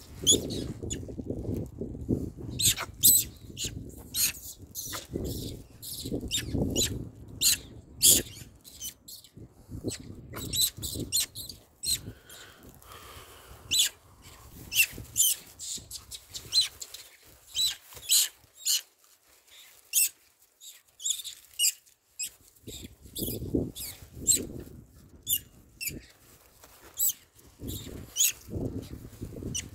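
Rustling with rapid sharp crackles and clicks, and bursts of low rumble during the first third and again near the end.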